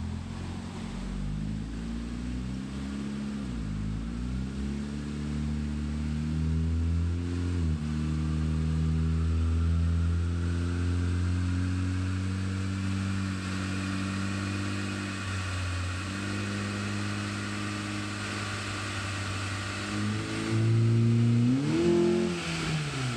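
Honda R18 1.8-litre four-cylinder engine, fitted with a cold air intake and aftermarket exhaust, running on a chassis dyno: the revs climb and drop back several times as it pulls, with a rising whine from the spinning wheels and roller underneath. Near the end it revs up quickly once more and falls back.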